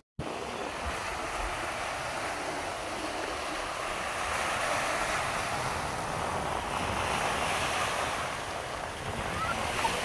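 Sea surf washing in steadily against the shore, with wind, after a split-second dropout at the very start.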